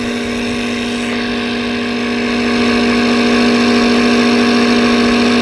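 Air compressor running steadily, pumping air into a go-kart tire whose bead has not yet seated. The pressure is climbing past 30 PSI. The sound gets a little louder about two and a half seconds in.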